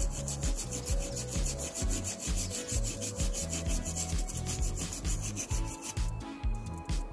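A toothbrush scrubbing the corroded main circuit board of a JBL Flip 4 speaker in rapid back-and-forth strokes, cleaning off sea-water corrosion; the scrubbing stops about six seconds in. Background music with a bass line runs underneath.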